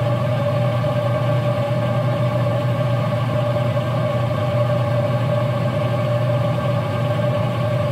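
Pellet grill's combustion fan running during the ignition startup, a steady hum with a faint whine, unchanging throughout, while the ceramic igniter heats the burn pot.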